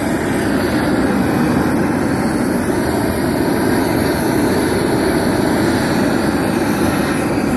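Handheld propane torch running steadily at full flame, a loud even rush of burning gas, as it is aimed at steaks on a cast iron griddle.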